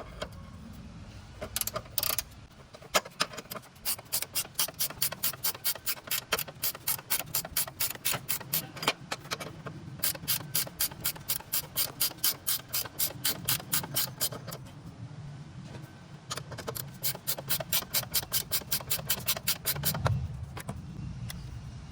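Hand ratchet wrench clicking in long quick runs while a bolt is turned out, with a short break about two-thirds of the way through before the clicking resumes.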